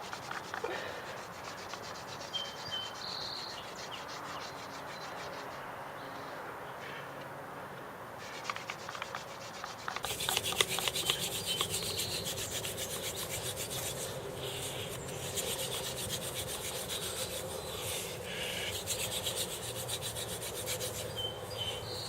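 Yucca hand-drill spindle spun back and forth between the palms in a wooden hearth board, a continuous rhythmic wood-on-wood rubbing as friction builds toward an ember. The rubbing grows louder about halfway through.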